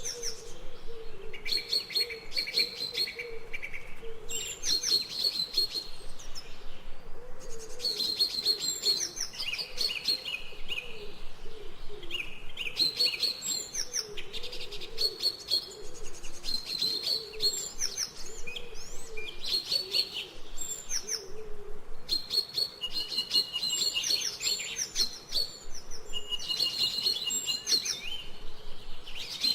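Songbirds chirping and trilling without pause: fast runs of repeated high notes alternate with short, sharp down-slurred calls, one bird answering another.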